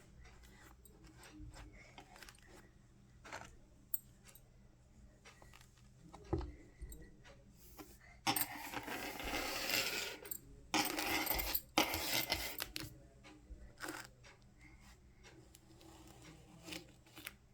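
Kinetic sand and small crafting tools being handled: scattered light clicks and taps, with two louder scraping rushes of about two seconds each near the middle.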